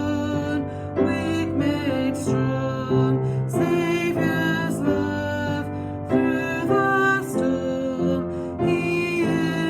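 A worship song playing: voices singing a melody over instrumental accompaniment, with a new note every half second or so.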